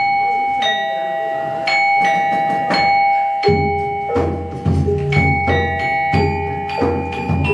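Gamelan accompaniment starting up: bronze metallophones strike ringing pitched notes about once a second, and low drum-like beats join about three and a half seconds in.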